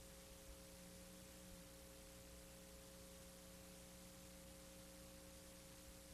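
Near silence: a faint steady electrical hum of a few held tones over a low hiss.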